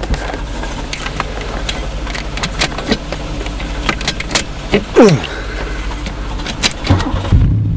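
Car engine being cranked by its starter, with repeated sharp clicks and a starter whine that winds down about five seconds in. Near the end the engine catches and runs steadily.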